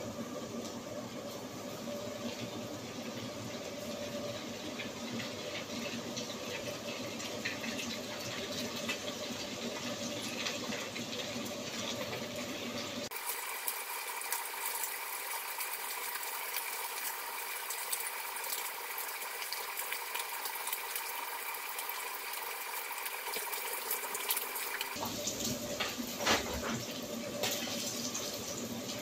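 Battered fish pieces, dogfish and whiting, shallow-frying in hot oil in a frying pan: a steady sizzling hiss with scattered crackles, and a few sharper clicks near the end.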